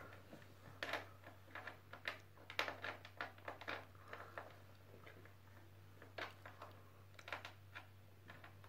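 Scattered light clicks and taps from a plastic baby walker as the baby shifts about in it, in two clusters with a short lull in the middle.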